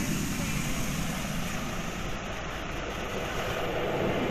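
Automatic car wash heard from inside the car's cabin: water jets spraying against the windshield and spinning cloth scrubber brushes sweeping the side of the car, over a steady low rumble. The noise grows a little louder near the end.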